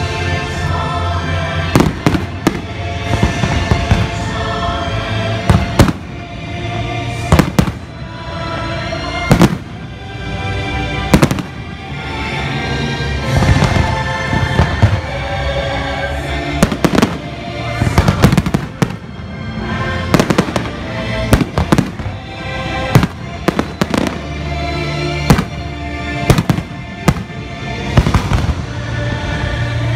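Aerial firework shells bursting, many sharp bangs at irregular intervals, over loud music with sustained notes.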